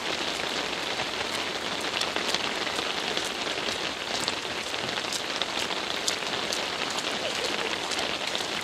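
Steady rain falling, with many sharp drop ticks scattered through it.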